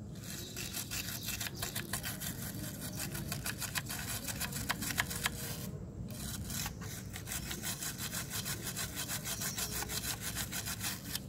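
Dry toothbrush bristles scrubbing dust off a computer motherboard in rapid back-and-forth strokes, with a short break about six seconds in.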